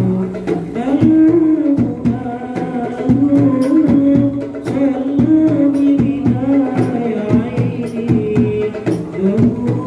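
Hadroh ensemble: a male voice sings a wavering, melismatic devotional melody through a microphone over a steady beat of rebana frame drums and a bass drum.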